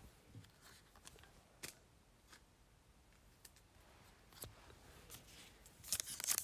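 Scattered faint clicks and taps, then near the end a foil trading-card pack crinkling as it is picked up and opened by hand.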